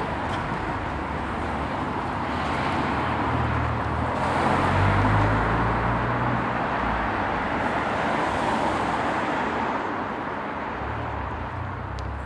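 Moderately busy street traffic: a steady wash of tyre and engine noise, with the low rumble of a passing vehicle swelling about four to six seconds in and again briefly near the end.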